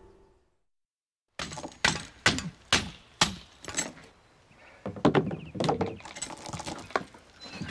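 After a fade of the score and a moment of silence, a run of sharp knocks and cracks, about a dozen, unevenly spaced and bunching up about five seconds in, like hard objects being struck or broken.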